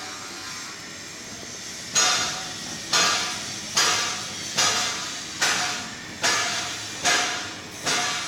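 495 hp fishing boat engine: a steady machine sound, then from about two seconds in, sharp hissing bursts repeat about every 0.85 s, eight in all, each fading before the next.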